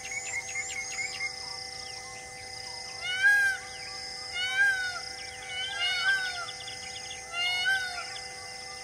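An animal call, rising then falling in pitch, repeated four times about a second and a half apart, each about half a second long. Under it, background music holds steady drone tones, with light chirping in the first second.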